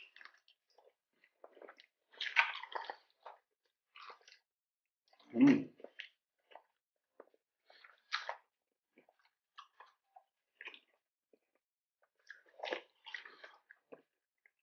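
Close-miked chewing and crunching of crispy fried battered squid rings and shrimp tempura. It comes in scattered short bites and chews with pauses between them, and one louder one about five and a half seconds in.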